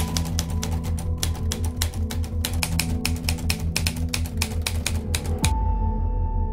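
Typewriter typing sound effect: a rapid, uneven run of key clacks that stops about five and a half seconds in, over ambient music with a slow pulsing low beat.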